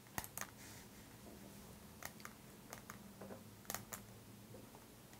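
Quiet room tone with a steady low hum and a scattering of faint, sharp clicks, about ten of them at irregular intervals.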